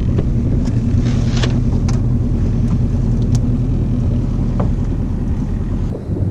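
Boat's outboard motor running steadily with the boat underway, a low even hum, with a few light knocks on the hull; the deepest part of the hum drops away near the end.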